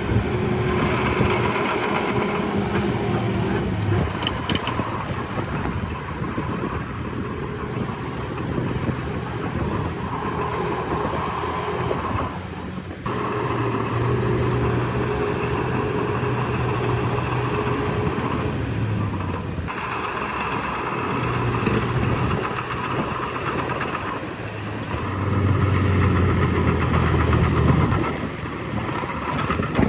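Heavy diesel earthmoving machinery running: a steady engine drone whose pitch and loudness shift abruptly several times.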